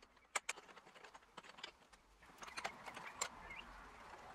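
Faint, scattered metallic clicks and taps of steel hardware being handled, as an M12 threaded rod and nut are fitted through a steel hinge bracket. There are two clicks about half a second in and a few more later, the sharpest about three seconds in.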